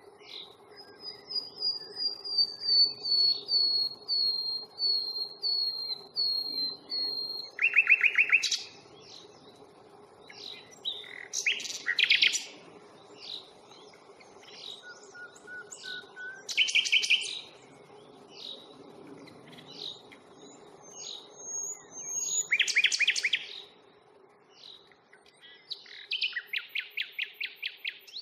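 Common nightingale singing: a long run of repeated whistled notes, then several loud phrases of fast rattling trills with pauses between them.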